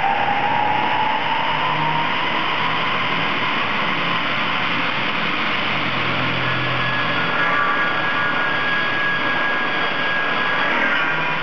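Log cross-cut saw machine running, its motor and circular blade making a loud, steady noise, with a whine rising in pitch over the first couple of seconds.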